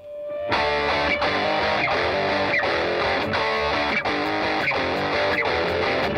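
Background music led by a plucked electric guitar, coming in about half a second in and playing a steady, repeating figure.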